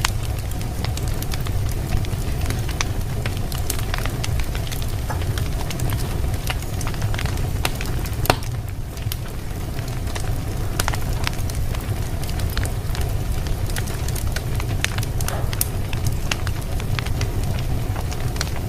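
Wood fire in a fireplace crackling, with frequent sharp pops over a steady low rumble; one louder pop about eight seconds in.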